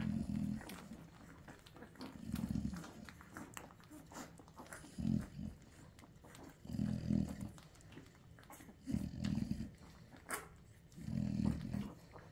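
Nursing American bully dogs, a mother and her puppies: six short, low grunts about two seconds apart, with soft clicks scattered between them.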